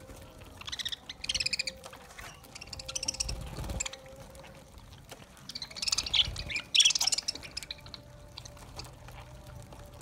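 A flock of budgerigars chattering and chirping in bursts while feeding, with the busiest, loudest chatter about six to seven seconds in.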